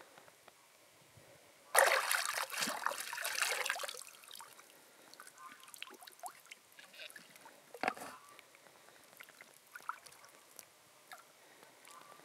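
Water splashing and trickling as hands and a large freshwater clam are lifted out of shallow water, loudest for about two seconds starting near the two-second mark, followed by scattered drips and a shorter splash later.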